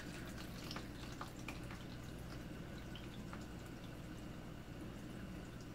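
Tap water running steadily into the wash tub of a twin tub washing machine as it fills, with scattered small drips and splashes.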